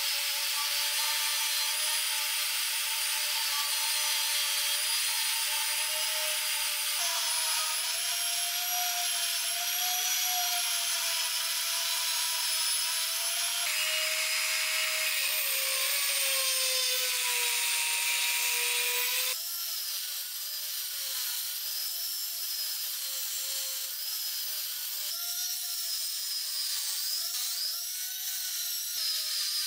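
Small high-speed rotary tool grinding an iron bar, first with a sanding drum and then with an abrasive cut-off wheel. It runs with a steady high whine, and near the end the pitch wavers up and down as the wheel bites into the metal.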